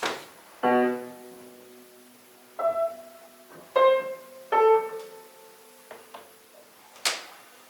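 A piano played slowly: a low chord, then three single notes, each left to ring and die away. A sharp knock comes at the very start and another near the end.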